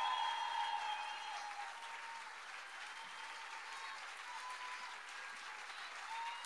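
Audience applauding, loudest in the first second and then settling to a steady level.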